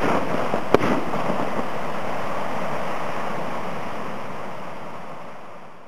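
Last shots of a Pyragric "Azteque 1" consumer firework cake: two sharp bangs in the first second, then a dense crackling rush of the bursting stars that fades out toward the end.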